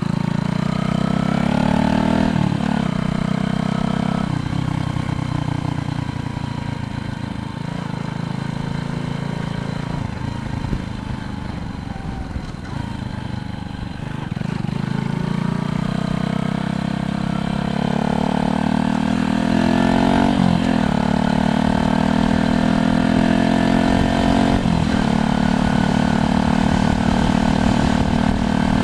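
Motor vehicle engine accelerating through the gears, its pitch climbing, then dropping sharply at each of several gear changes.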